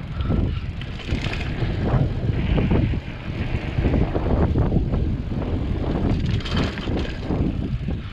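Mountain bike ridden down a dirt singletrack: tyres rolling over the dirt, with the bike rattling and knocking over the bumps.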